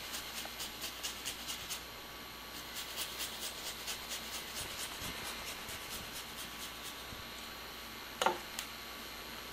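Fresh ginger grated on a metal rasp zester: quick, even scraping strokes, about five a second, with a short pause about two seconds in. A single sharp knock near the end.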